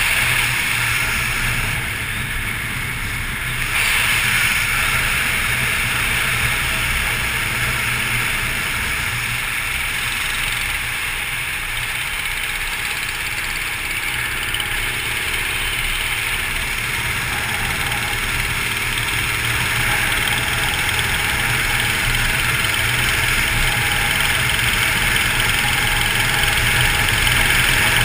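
Motorcycle riding at steady road speed, its engine and wind noise heard from a camera mounted on the bike.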